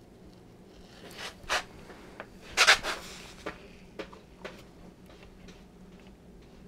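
A series of short scrapes and clicks from handling during soldering of model-railway rails, starting about a second in and dying away after about four and a half seconds, loudest about two and a half seconds in.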